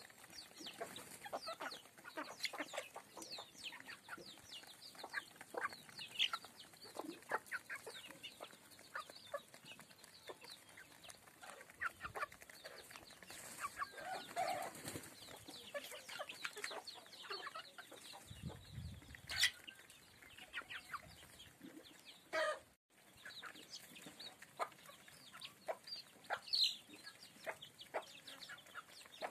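Flock of Apatani chickens pecking feed off a concrete yard: a steady patter of quick beak taps, with occasional clucks and short calls.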